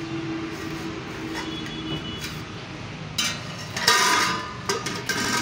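Steel pots and utensils clinking and clattering as they are knocked about, loudest from about three seconds in.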